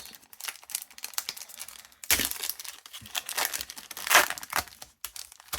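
Foil Pokémon booster pack wrapper crinkling and being torn open, a dense crackle with two louder bursts about two and four seconds in.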